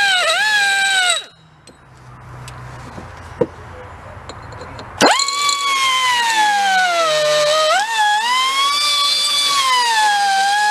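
Pneumatic die grinder whining at high speed while smoothing the edges of balancing cuts in a piston, its pitch dipping each time the bit bears on the metal. It runs for about a second, stops for about four seconds, then starts again and runs on.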